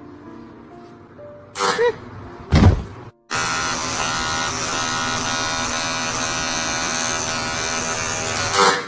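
Two short, loud sounds in the first three seconds, then an electric shaver buzzing steadily from a little over three seconds in, stopping just before the end.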